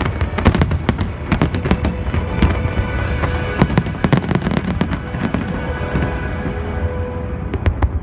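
Fireworks bursting in quick succession: many sharp bangs and crackles over a low rumble, with music playing alongside.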